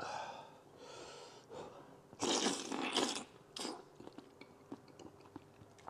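A person slurping and sucking the soft, gelatinous skin off a stewed pork trotter dipped in chili-oil sauce: a few breathy slurps, the loudest a bit over two seconds in, followed by small wet mouth clicks.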